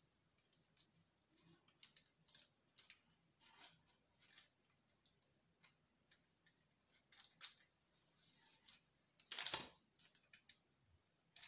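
Kitchen knife slicing through a log of vanilla and chocolate cookie dough on parchment paper: faint, irregular cuts and taps, with one louder noise about nine and a half seconds in.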